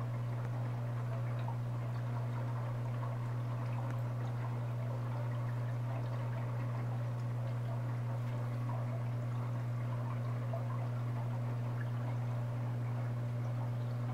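Aquarium water bubbling and trickling over a steady low hum from the tank's equipment.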